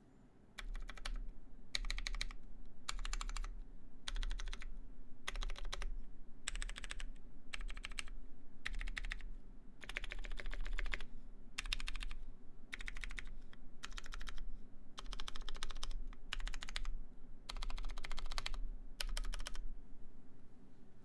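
Typing on a mechanical keyboard with lubed Cherry MX Clear switches, a brass half plate and GMK keycaps: quick runs of keystrokes in short bursts with brief pauses between words.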